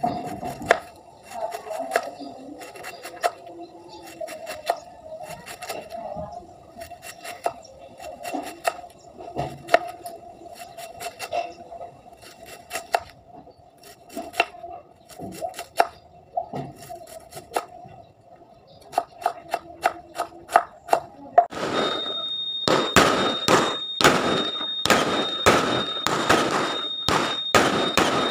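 A kitchen knife slicing a cabbage into shreds on a wooden cutting board, one sharp stroke after another, about one to two cuts a second. About 22 seconds in it switches to fireworks: a fast run of loud bangs over a steady high tone.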